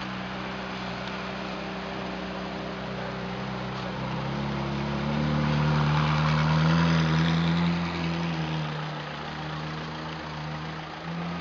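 Ferrari 458 Italia's V8 idling in slow traffic, then moving off at low revs. Its engine note rises a little and grows louder as the car passes close by, then fades as it pulls away.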